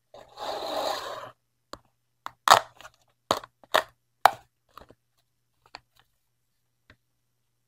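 A paper receipt slides out of a cardboard slot with about a second of rustling, then is torn off against a serrated edge in a run of five or six sharp tearing snaps, followed by a few faint paper rustles.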